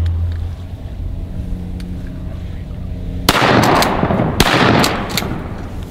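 Two shotgun shots about a second apart, fired at a flying duck, each followed by about a second of dying echo.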